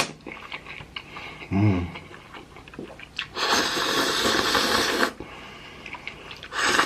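A person slurping a big mouthful of thick, chewy spicy ramen noodles in one long, hissing slurp of about a second and a half, beginning about three and a half seconds in, with a short hum before it and a shorter slurp or sharp breath near the end.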